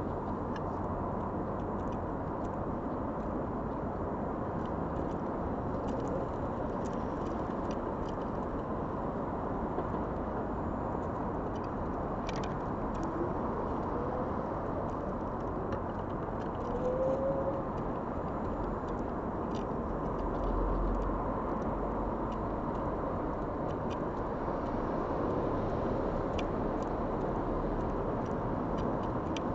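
Steady outdoor background noise of distant road traffic, with a few faint clicks and a brief faint rising tone about halfway through.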